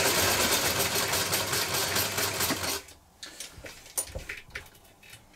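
A 1956 Singer 201K sewing machine runs and stitches on its strap-on motor: a fast, even run of needle strokes over a steady motor hum. It stops about three seconds in, and a few light clicks and taps follow as the handwheel and cloth are handled. The owner calls the machine sluggish and clunking rather than smoothly purring, and puts it down to a worn original V-section belt and a lack of oil.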